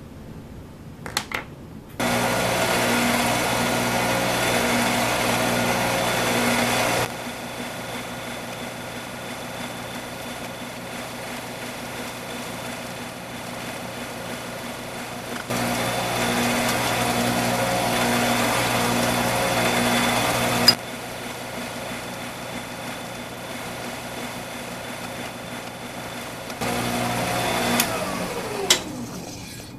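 Bench drill press running while drilling small holes through an aluminum plate. The machine sound steps between louder and quieter stretches several times, and a falling whine sounds near the end as the spindle slows.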